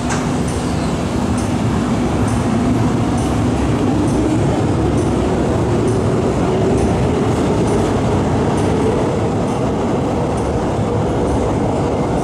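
MTR M-Train electric multiple unit running through an underground station without stopping. A motor whine rises steadily in pitch over a steady rumble, with regular clacks of the wheels about twice a second.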